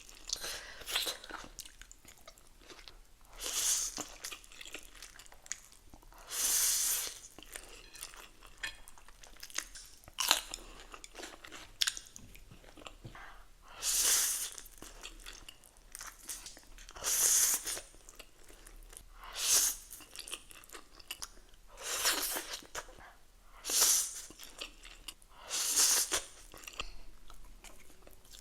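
Close-miked eating of ramen with pork and lettuce: steady chewing with small wet clicks, broken every two to three seconds by a louder hissing burst of about half a second to a second.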